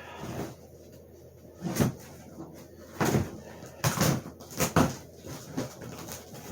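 A cardboard box being handled and unpacked: several sharp knocks and scrapes of cardboard with rustling of packing material, the loudest about two, three, four and nearly five seconds in.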